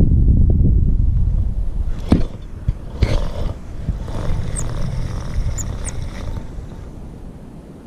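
Wind buffeting the microphone, a loud low rumble that dies down after about two seconds. Two sharp clicks follow about two and three seconds in, then a few faint high chirps.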